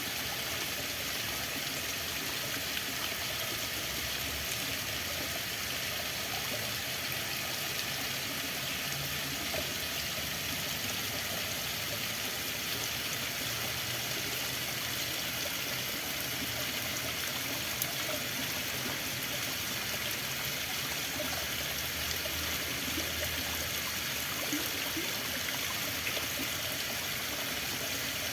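Running water flowing steadily, an even, unbroken rush like a stream.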